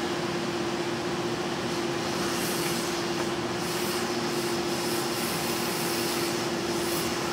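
Yihua 992DA hot air rework station blowing a steady rush of hot air through a narrow restrictor nozzle onto a circuit board, heating a component to desolder it, with a steady hum under the hiss.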